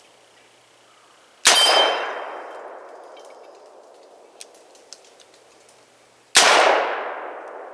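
Two shots from a Rock Island Model 200 .38 Special revolver fired double action, about five seconds apart, each followed by a long echo dying away; both rounds go off.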